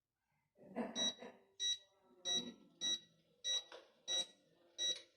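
Electric fireplace's control unit beeping, about seven short high-pitched beeps at an even pace starting about a second in, as the volume of the fireplace's log-crackling sound effect is stepped down by button presses.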